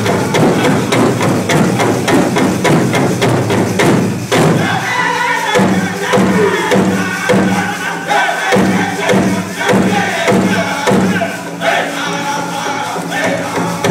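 Powwow drum group singing in chorus over a steady, even drumbeat, the voices strongest from about four seconds in.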